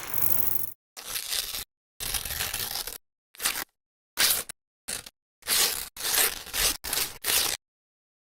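A quick run of about ten short noise sound effects, each lasting well under a second and cut off sharply, with dead silence between them: the transition effects laid under camera-burn and light-leak overlays.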